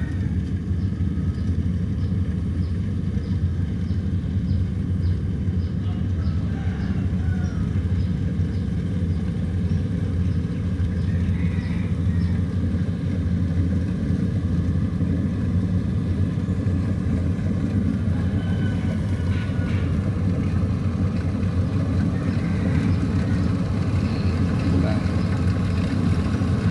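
Rice combine harvester's diesel engine running steadily with a low drone.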